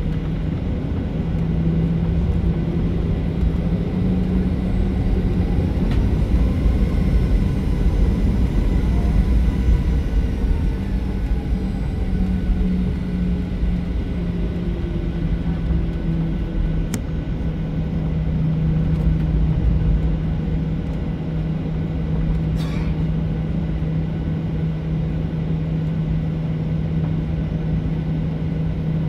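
Jet airliner's engines running at low power, heard from inside the cabin as the plane taxis: a steady drone over a low rumble. A faint whine rises and falls in the first half.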